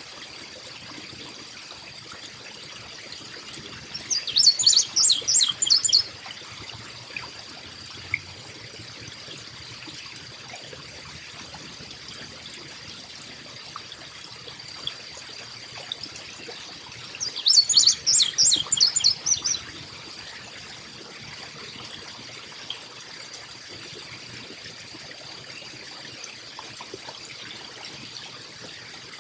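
Carolina chickadee calling in two bursts of rapid high notes, each about two seconds long, one a few seconds in and another past the middle. Underneath is a steady trickle of water and a thin, constant high-pitched tone.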